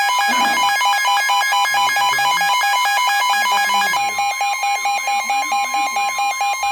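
Weather-radio alert alarm between broadcast warnings: a loud, rapid electronic beeping of about eight pulses a second, with a steady alert tone sounding under it from about four seconds in.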